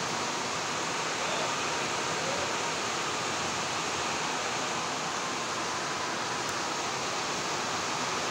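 Heavy rain falling on trees, a steady rushing hiss with no let-up.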